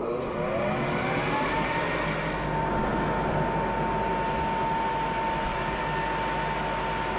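Electric floor sander winding up to speed, its motor whine rising over the first second or two, then running steadily with a high whine over a loud rushing hiss.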